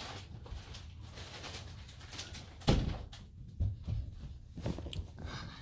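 A few knocks and thumps in a quiet small room, the loudest about two and a half seconds in.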